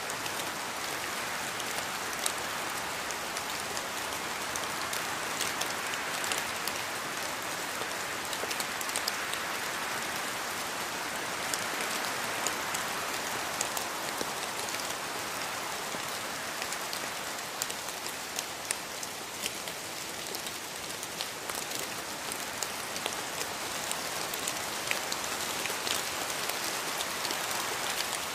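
Steady rainforest rain: a continuous hiss of rainfall with many distinct drops pattering on leaves and surfaces.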